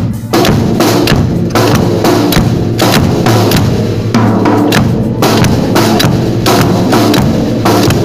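Drum kit played close up, the snare and bass drum keeping a steady, busy rhythm with many loud strokes a second.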